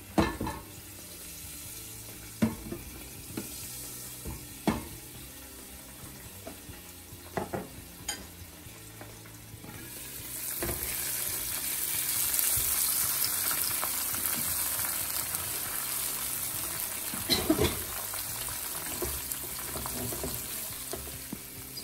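Tomato sauce and spices frying in oil in a lidded non-stick pan: a soft sizzle with a few sharp knocks. About ten seconds in the lid comes off and the sizzling gets louder and brighter, with a spatula knocking and scraping the pan.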